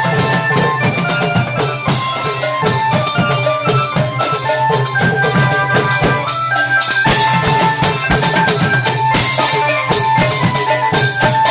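Thai klong yao long-drum ensemble playing a fast, dense drum rhythm with percussion, over which a melody of held notes runs.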